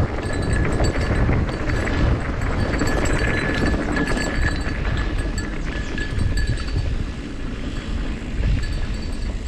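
Wind buffeting the microphone, with a rough, uneven rumble, as a rider moves along a cold mountain trail.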